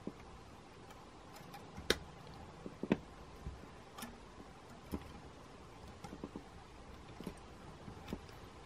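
Pliers gripping and tugging stainless steel wire wound around a hose: a handful of short, sharp metallic ticks, roughly one a second, the loudest about two and three seconds in.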